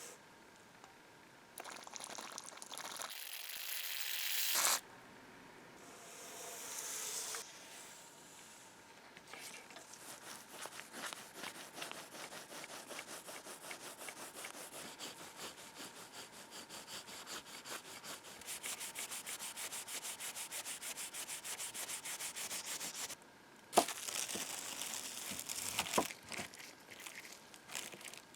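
Sandpaper rubbing by hand on a cast iron drawer pull in quick, even back-and-forth strokes, with a few longer passes at first. A sharp knock comes near the end.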